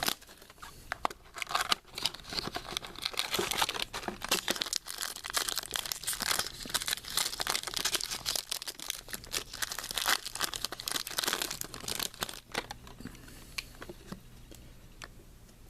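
Crinkling and tearing of plastic wrapping as a sealed box of baseball trading cards is opened by hand, with many small clicks and rustles of handling.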